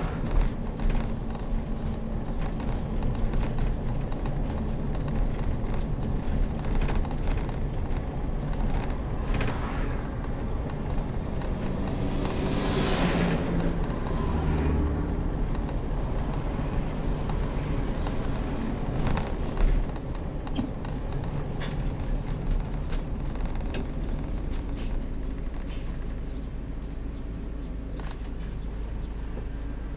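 Heavy motorhome on the road: a steady low engine and road rumble, with frequent small clicks and rattles. About halfway through, a louder whoosh swells and fades.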